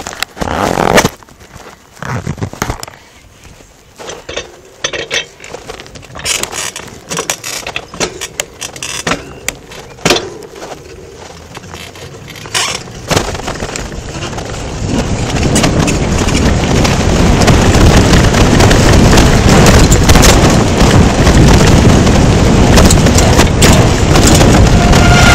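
A bicycle ridden fast off-road, heard from a camera carried on the bike: knocks and rattles over bumps, then from about halfway a steady loud rush of wind on the microphone as the speed builds.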